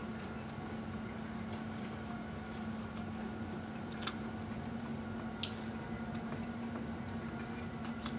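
A person chewing a mouthful of loaded nachos with wet mouth sounds and a few sharp crunchy clicks, over a steady low hum.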